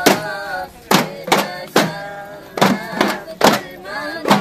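Hand-held frame drums struck together in a steady beat, about two strokes a second, with a group of boys' voices chanting in unison between the strokes.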